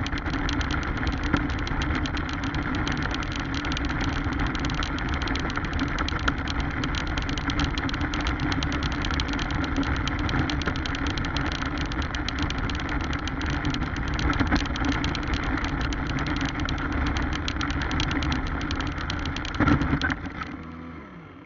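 Radio-controlled car running over rough stony ground: steady motor and drivetrain noise with constant fine rattling, a louder knock just before the end, then the sound fades and cuts off.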